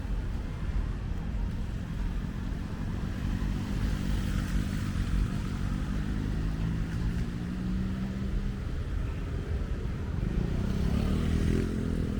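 Street traffic: motor vehicle engines running close by, with one engine rising in pitch near the end as it speeds up or passes.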